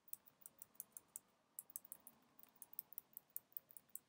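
Computer keyboard keys tapped in a quick, uneven run of faint clicks, about five a second, as the keys are pressed to move a player through a maze game.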